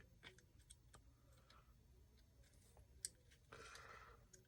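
Faint, scattered clicks of flat pliers working the metal connector leads of a battery cell pack, with one sharper click about three seconds in followed by a short rustle.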